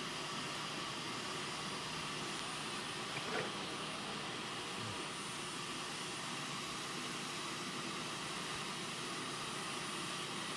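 Vacuum cleaner running steadily, an even rushing noise, with a brief sharper sound about three seconds in.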